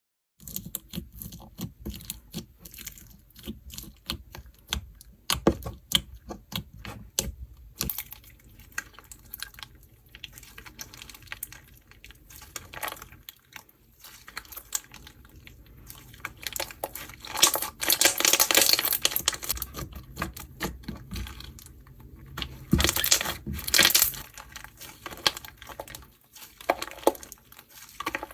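Slime being squeezed and pressed by hand, giving a rapid run of small clicks and crackles as trapped air pops, with louder, denser crackling about two-thirds of the way through.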